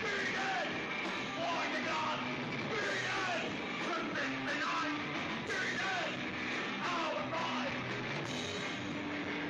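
Punk rock song playing, with shouted singing over a dense, loud band.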